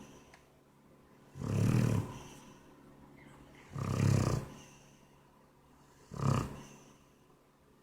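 Shar Pei dog snoring: three snores about two and a half seconds apart.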